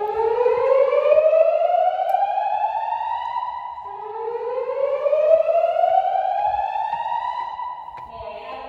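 Fire alarm voice-evacuation speakers on Gentex signals sounding a whoop alert tone: two slow rising sweeps, each lasting about four seconds.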